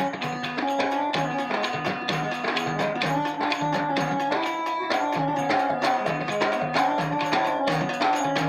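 Instrumental passage of a Marathi devotional folk song: a Casio electronic keyboard plays the melody in held, stepped notes over a quick, even hand-drum rhythm, with no singing.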